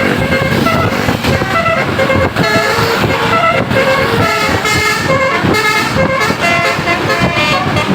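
Bus telolet basuri musical air horn playing a fast tune, its notes changing several times a second, over vehicle noise.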